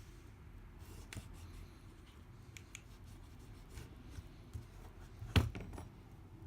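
Quiet hand work on an iPad's frame: faint rubbing and scattered small clicks of a swab and tools, with one sharper tap about five seconds in.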